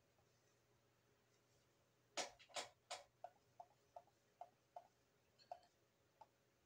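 Computer mouse clicking: a quick cluster of three or four louder clicks a little past two seconds in, then a run of light clicks about three a second, with a few more near the end.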